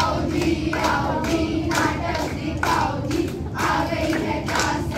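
A group of schoolchildren singing together in unison, clapping their hands to a steady beat.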